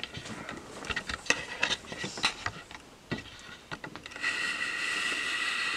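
Fingers pressing and tapping on an iPhone 5s and an iPhone 8 lying on a wooden table: scattered light clicks, taps and rubs. From about four seconds in, a steady hiss with a faint high whine comes in under them.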